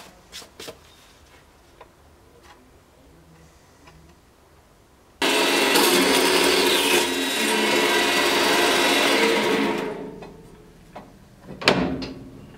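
Metal-cutting power saw starting abruptly about five seconds in and cutting through a thin metal rod clamped in its vise, a loud steady machine noise that winds down after about four seconds. A few knocks follow near the end as the rod is handled in the vise.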